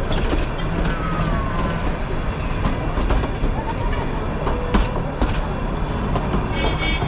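Nilgiri Mountain Railway passenger train rolling slowly over the track: a steady rumble with scattered clicks of the wheels over rail joints and points, and brief high squeals near the start and near the end.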